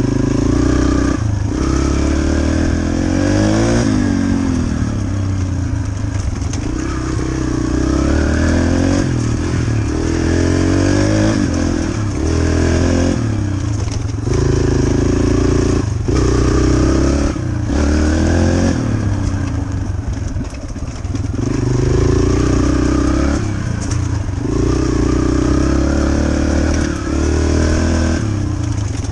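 Yamaha dirt bike engine being ridden hard, revving up and easing off again and again, its pitch climbing with each pull of the throttle and dropping back every two seconds or so.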